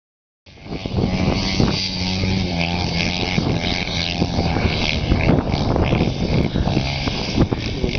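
Dirt bike engine revving up and down as the rider drifts it, starting about half a second in, its pitch rising and falling.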